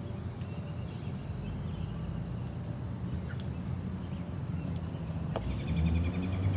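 Outdoor street ambience: a steady low rumble with birds chirping. Near the end come a couple of sharp knocks and louder handling noise as the camera is reached for, with a fast run of chirps over it.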